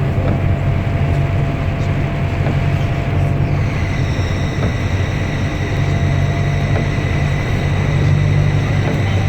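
2008 Otokar 145 S bus running on the road, heard from on board: a steady low engine drone, with a steady high-pitched whine coming in about three and a half seconds in.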